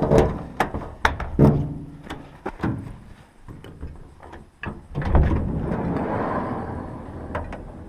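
A string of sharp knocks and clunks, then a few seconds of rustling that fades near the end.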